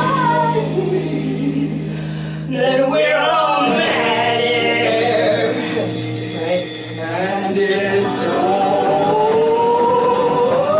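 Live folk-rock band music: women singing over acoustic guitar and bass guitar. Near the end a long sung note glides upward and is held.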